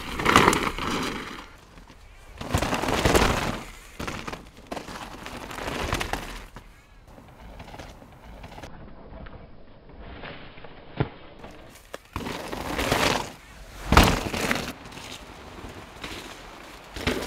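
Mountain bike ridden hard down dirt forest trails: repeated bursts of tyre noise scrubbing through the dirt, with a sharp knock about eleven seconds in and a louder one about fourteen seconds in as the bike lands.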